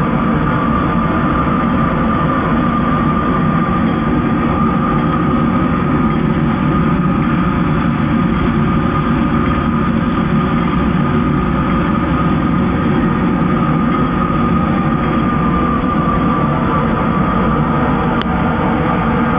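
Homemade CNC airbrush spraying machine running: a steady mechanical drone with a constant whine.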